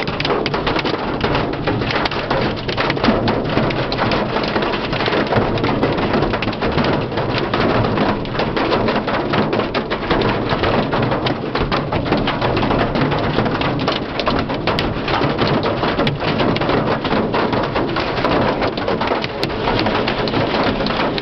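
Hail pelting a car's roof and windshield, heard from inside the car: a loud, steady, dense clatter of countless hailstone impacts.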